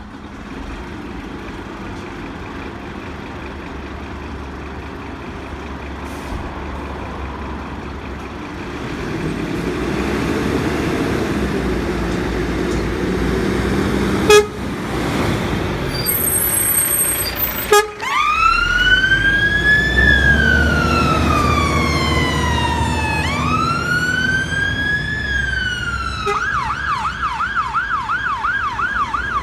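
Scania fire engine's diesel engine running and pulling away, with two sharp knocks along the way. A brief high electronic beeping comes just before its siren starts. The siren sounds two slow rising-and-falling wails, then switches to a fast yelp near the end.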